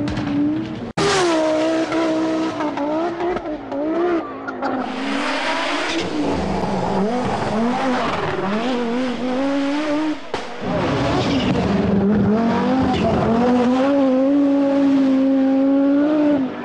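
Audi quattro Group B rally car's turbocharged five-cylinder engine at full power on a loose stage, revving up and dropping back again and again through gear changes and lifts. It plays as several clips joined by abrupt cuts, about a second in and again about ten seconds in.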